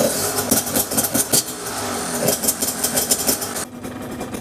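Dirt bike engine running at uneven, surging revs, then dropping to a quieter steady idle near the end.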